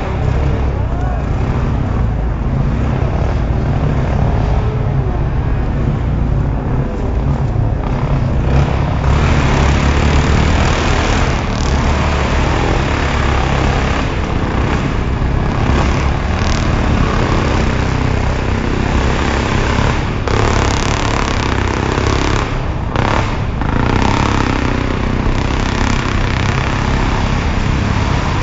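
Racing dirt-bike engines running continuously, heard from trackside, with pitch rising and falling as the bikes rev through the course.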